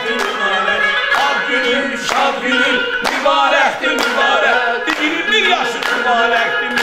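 Music: a song with a bending vocal line over held instrumental notes and a steady beat about once a second.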